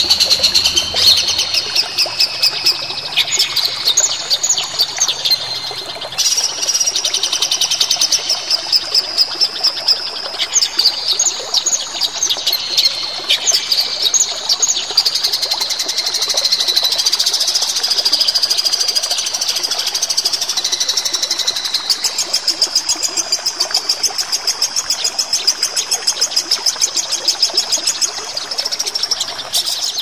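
Songbird singing continuously: high, fast chattering phrases of chirps and trills, turning into a fast, even run of repeated notes in the second half.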